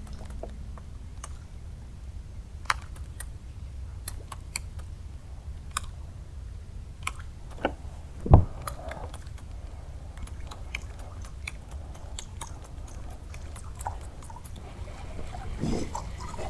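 Scattered sharp clicks and ticks over a low steady rumble, with one louder dull thump about eight seconds in.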